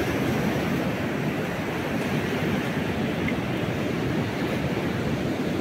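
Steady rush of ocean surf breaking on a beach, with wind on the microphone.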